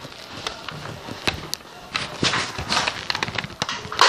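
A string of irregular clicks, taps and rustles: handling noise from a Nerf blaster and a handheld camera carried about while moving.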